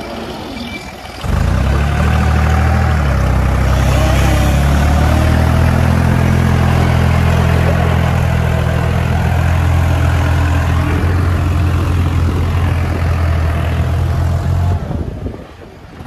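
A farm tractor's diesel engine runs loud and steady under load as it pulls a trailer of logs through deep mud. The engine starts up sharply about a second in and falls away shortly before the end.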